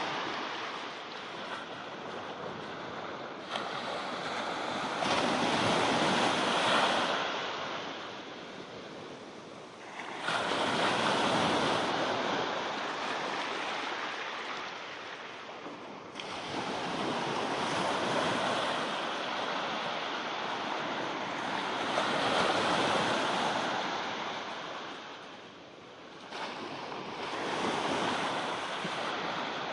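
Ocean surf: waves breaking and washing in, rising and fading about every five to six seconds.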